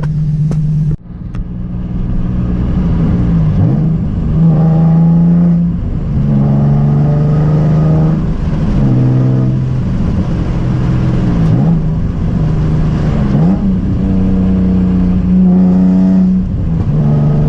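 Car engine and exhaust running under way, the engine note holding steady for stretches, then dropping and climbing again several times as the revs change.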